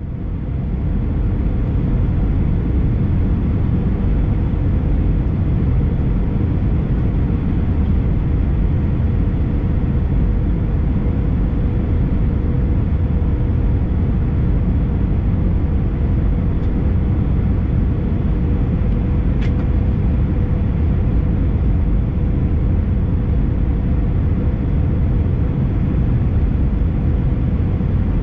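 Airbus A319 cabin noise in flight: a steady, even rushing of air and engines, heaviest in the low end, with a faint constant hum above it.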